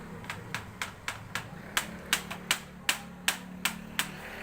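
A run of about a dozen sharp taps, roughly three a second, louder in the middle of the run, over a faint low hum.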